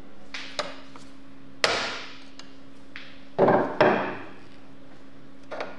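Sharp knocks and clicks of hand tools working on a rusty trike's pedal crank arm. The hits are irregular: one strong knock about a second and a half in, two strong knocks in quick succession a little past halfway, and lighter clicks before and after.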